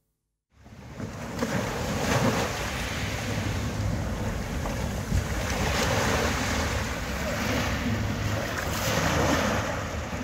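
Sea waves breaking and washing on a shore, with wind rumbling on the microphone. It fades in about half a second in, then swells and eases gently.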